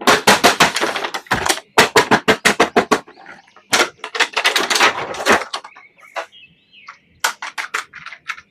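Electronic Iron Man action figure playing its sound effects: runs of fast, sharp blasts, and a short high whine near the end.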